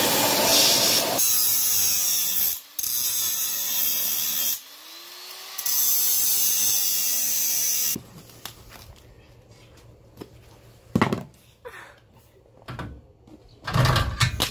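An electric power tool runs loudly for about eight seconds, its pitch shifting and dropping out briefly twice, while tackling a floor tie-down anchor. Then a few sharp knocks follow near the end.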